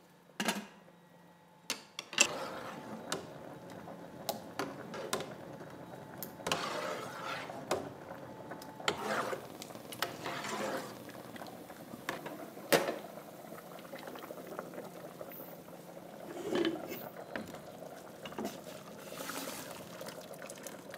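A pot simmering on a gas stove, with scattered sharp clinks and knocks of a metal lid and a wooden spoon against a stainless steel pot; the loudest knock comes about halfway through.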